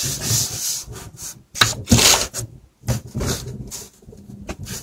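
Handling noise: a string of short rubs and scuffs of a hand and a marker moving over a sheet of paper close to the microphone, with brief quiet gaps between them.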